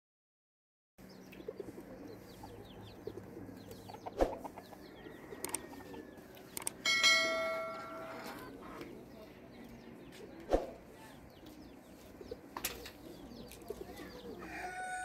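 Farmyard sounds with a few sharp knocks, a bell-like ringing tone about seven seconds in that fades over a second or so, and a rooster starting to crow near the end.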